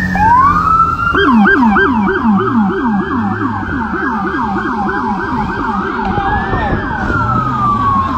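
Police car siren switching between modes: a slow rising-and-falling wail, then a fast yelp at about four cycles a second from about one second in, then back to the slow wail near the end.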